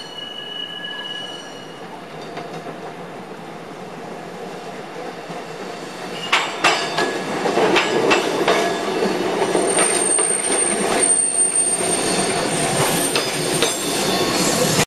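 SEPTA Kawasaki light-rail trolley approaching and passing, getting louder, with a run of sharp clacks from the wheels over rail joints and switches about six seconds in. A high, steady wheel squeal follows as it rounds the track curve.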